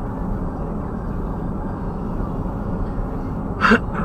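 Steady road and drivetrain noise inside the cabin of a Smart Fortwo on the move. About three and a half seconds in comes a short, loud pitched sound.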